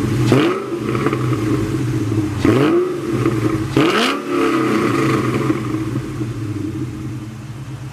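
2003 Ford Mustang Mach 1's 4.6-litre DOHC V8 heard at the exhaust, idling and blipped three times in the first half, each rev rising and falling straight back. It then idles steadily.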